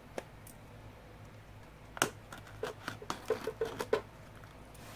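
Hands handling the smartwatch's packaging: a single click near the start, then a quick run of about ten clicks and taps over some two seconds midway.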